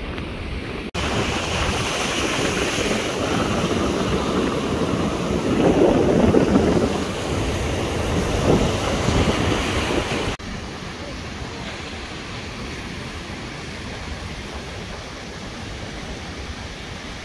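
Sea surf breaking and washing up a sandy shore, with wind on the microphone. The sound changes abruptly about a second in and again about ten seconds in: between these cuts it is louder and swells twice, and afterwards it settles to a quieter, steady wash.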